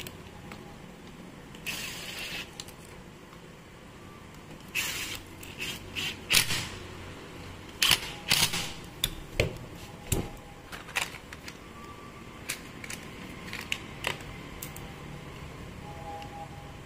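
Clicks and knocks of angle-grinder parts being handled and fitted, with brief bursts from a cordless screwdriver driving screws into the grinder's plastic rear housing about eight seconds in.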